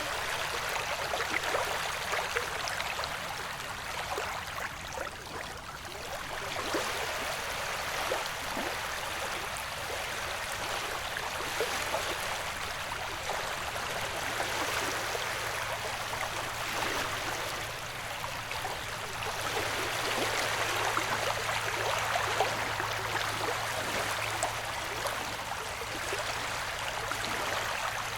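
Recorded ocean waves washing and fizzing as a steady rush with small splashy crackles, swelling and easing slowly. A faint low hum joins about halfway through.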